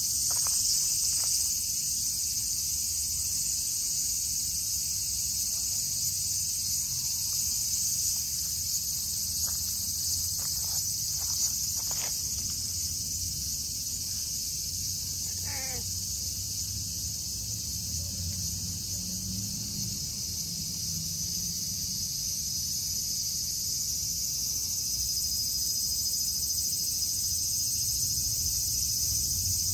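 Insects chirring in a steady, shrill chorus, with a few faint clicks in the first half and a brief falling sound about halfway through.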